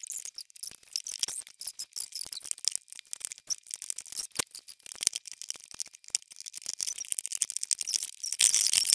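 Rubber bands on a plastic peg loom being worked with a loom hook, giving a dense run of small irregular clicks and ticks as bands slip off the pegs. Near the end comes a louder, thicker burst of rustling and clattering.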